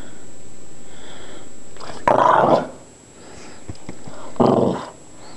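Boston terrier letting out two short, rough growls about two seconds apart, in a play bow: playful growling.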